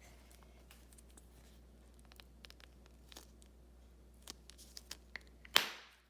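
Plastic Pop Pops Pets toy capsule being handled and squeezed: small crinkles and clicks that grow busier, then one loud sharp pop with a short hiss near the end as the capsule bursts open.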